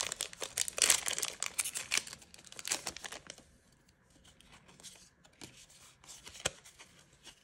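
Plastic booster-pack wrapper crinkling and tearing as it is opened, dense for about the first three seconds. After that come only faint rustles of the cards being handled, with one sharp tick about six seconds in.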